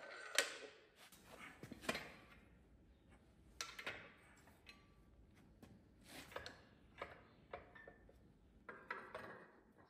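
Light metallic clinks and knocks, irregular and spread out, of metal parts and tools being handled.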